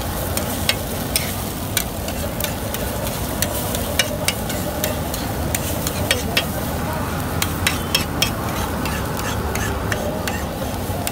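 Metal spatula clacking and scraping on a flat street-stall griddle, chopping and scrambling eggs with onions, in sharp irregular taps a few times a second over a steady frying sizzle.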